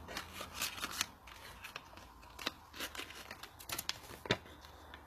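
Products and packaging being handled and rummaged for in a bag: irregular crinkling and rustling with scattered sharp clicks, the loudest about four seconds in.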